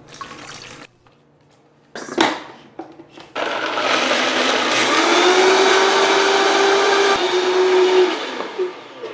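Water poured into a Vitamix blender jar, a knock about two seconds in, then the Vitamix motor starts about three seconds in and runs at a steady pitch, blending cashews, pine nuts and water into a cream sauce, before cutting off near the end.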